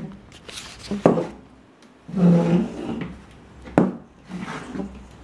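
Oversized high-heeled sandals clacking on a hardwood floor as a toddler walks in them: two sharp knocks, about a second in and near four seconds, with a short voice sound about two seconds in.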